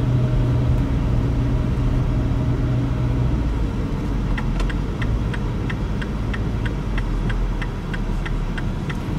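Car running, heard from inside the cabin: a steady engine and road rumble. From about four seconds in, the turn signal ticks regularly, about three ticks a second, as the car turns at a junction.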